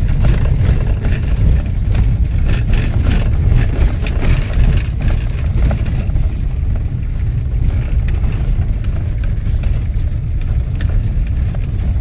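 Vehicle road noise heard from inside the cab while driving a rough dirt road: a steady low rumble with frequent rattles and knocks from bumps, busiest in the first half.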